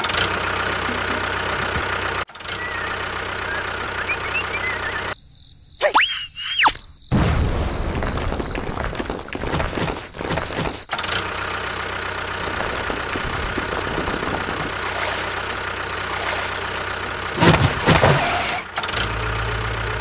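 Tractor engine running steadily. About five seconds in it drops away briefly while two gliding whistle tones sound, then it runs on, with a louder rough burst near the end.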